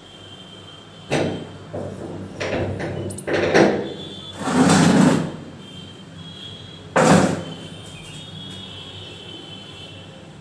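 A run of knocks and scrapes: short knocks about one, two and a half and three and a half seconds in, a longer, louder scrape about halfway through, and a last sharp knock about seven seconds in.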